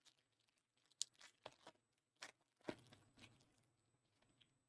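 Faint handling of trading cards: several short scrapes and taps as cards are slid and flipped through a pack.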